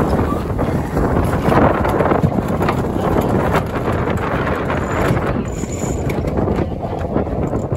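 Strong wind buffeting the microphone aboard a sailing boat under way: a loud, gusty rumble that rises and falls.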